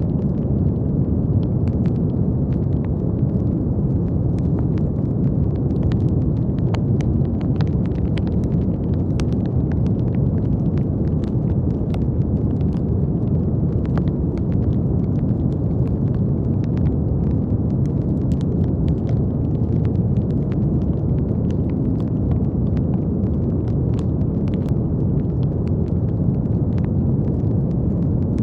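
Brown noise: a steady, deep rumbling hiss weighted toward the low end, with faint scattered crackles.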